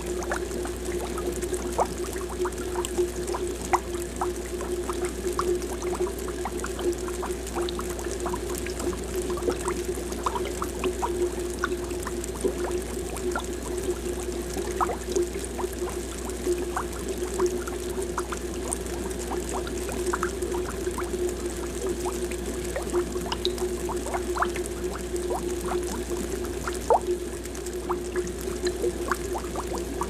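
Aquarium air bubbles rising and popping at the water surface in quick, irregular little plinks and gurgles, over a steady low hum.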